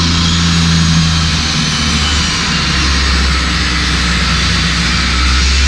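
Table saw running steadily with a loud motor hum and blade whine as it cuts a spline slot through a mitered walnut picture-frame corner held in a jig. The low hum drops slightly in pitch about two seconds in.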